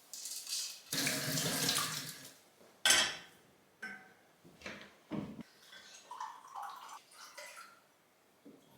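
Water running for about a second and a half, then a sharp knock and several smaller knocks and clinks of kitchenware being handled.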